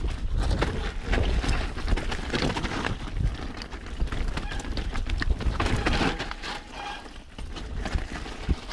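Mountain bike descending a wet, rooty dirt trail: knobby tyres on the ground and the bike clattering and rattling over roots and rocks, with wind rumble on the camera microphone. The clatter eases off briefly about seven seconds in.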